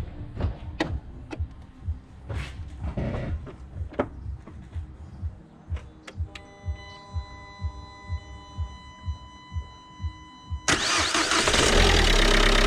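Renault Mégane 3's 1.5 dCi four-cylinder diesel catching near the end and settling into a steady idle, started after an oil change so the new oil filter fills. Before it, a steady beat of low thumps about twice a second with some held tones.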